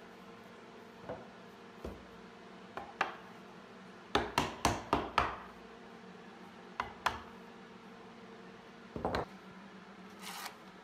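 Wooden knocks as a glued cherry board is pushed and struck by hand down onto the side panels' tight-fitting joints. There are scattered single knocks, a quick run of about five a little past four seconds in, and a soft swish near the end.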